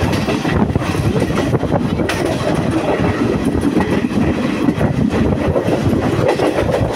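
Sri Lanka Railways Chinese-built diesel multiple unit running at speed, heard from its open doorway: a steady loud rumble of wheels on rail with occasional knocks.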